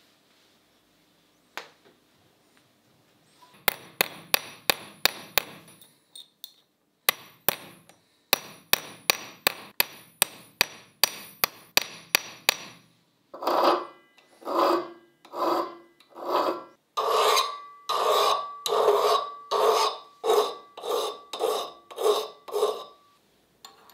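A run of sharp, ringing metal-on-metal taps on the steel screwdriver blade, about three a second, with a short break. Then, a little past halfway, a file is drawn back and forth across the blade in longer strokes, a little over one a second, each stroke ringing.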